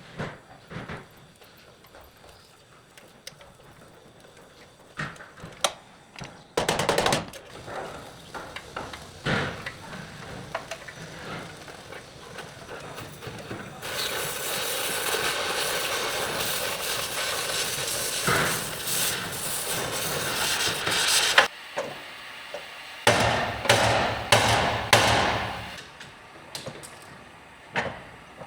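Auto body repair work: scattered metal taps and knocks, then a power tool running steadily for about seven seconds from around the middle, followed by a few short bursts of it.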